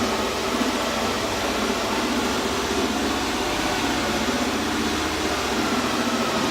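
A machine running steadily: an even mechanical noise with a faint hum of steady tones, no starts, stops or knocks.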